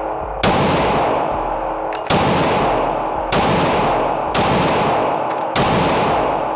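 Five shots from a Glock 19 MOS 9mm pistol, fired at a steady unhurried pace about one every second or second and a half, each with a long echoing tail.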